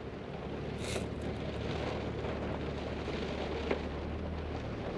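Rain falling on a car's roof, heard from inside the cabin as a steady hiss, with a low steady hum underneath.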